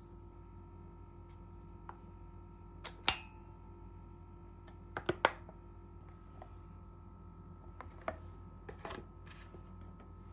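Kitchen handling sounds: sharp knocks and clicks of plastic tofu-pack trays and a stainless steel mixing bowl as silken tofu is turned out into the bowl. The loudest is a knock about three seconds in that rings briefly, then a quick double click about five seconds in and a few lighter taps near the end, over a steady low hum.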